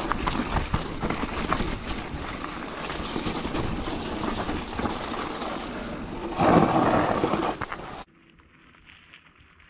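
Mountain bike ridden fast down a rough dirt trail, heard from a camera on the bike or rider: tyres rolling over dirt and roots, the bike rattling and knocking, and wind rushing past the microphone, louder for about a second around six and a half seconds in. It cuts off suddenly near the end, leaving faint outdoor background.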